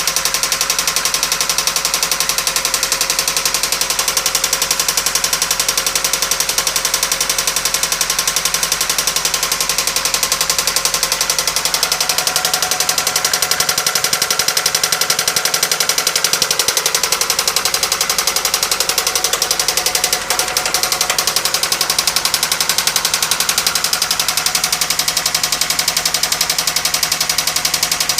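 1997 Toyota Camry engine running with a rapid, steady knock. The knock is the sign of serious internal engine trouble; a blown head gasket is suspected as a possible cause.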